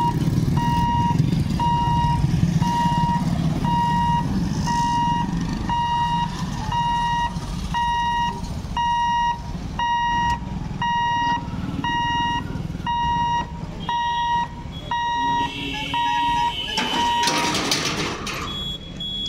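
Warning beeper of a railway level-crossing boom barrier, sounding while the booms are lowered: an even run of high electronic beeps, about one and a half a second, that stops about seventeen seconds in. Motorbike and auto-rickshaw engines run under it at first, and a brief loud rush of noise comes near the end.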